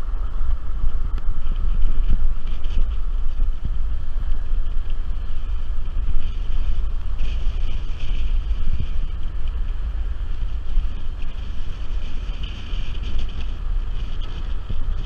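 Wind noise on the microphone of a camera mounted outside on a moving car's bonnet, over a steady low rumble from the car on the road.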